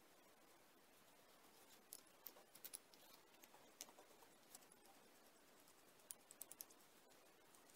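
Faint light clicks and taps of metal parts being handled: a turned aluminium nutcracker body, threaded rod and end cap being fitted together by hand. The clicks come in two short clusters, about two seconds in and again about six seconds in.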